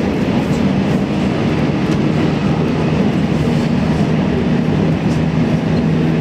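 JR Central 313 series electric train running along the track, heard from inside at the front of the car: a steady rumble of wheels on rail. A low steady hum grows stronger about halfway through.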